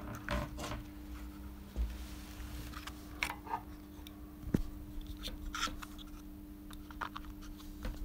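Scattered light clicks and rustles of a plastic motorcycle turn-signal relay being handled among the wiring connectors, with one sharper click about halfway through. A faint steady hum runs underneath.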